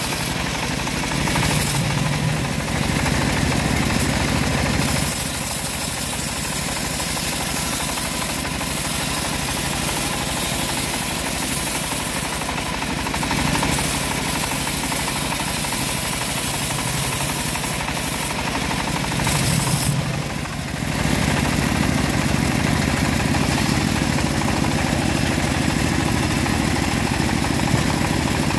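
Homemade bandsaw sawmill running steadily while its blade cuts lengthwise through a log. The machine's drone shifts in tone several times and dips briefly about twenty seconds in.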